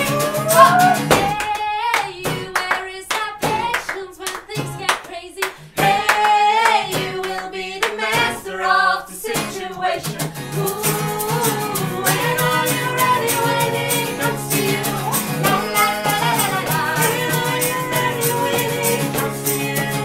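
Pop-folk song played live: voices singing together over sharp hand claps, with the guitars mostly dropped out. About halfway through, acoustic guitars come back in under the singing.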